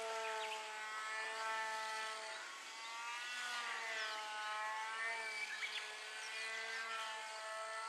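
Electric motor and propeller of a radio-controlled model airplane flying overhead, a steady drone with overtones whose pitch slides slowly up and down as it flies. The drone is noisy ('やかましい'), which the owner puts down to a bent shaft on the stock motor.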